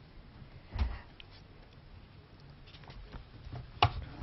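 A book being handled on a wooden lectern close to the microphones: a soft thump about a second in and a sharper knock near the end, with faint rustling between.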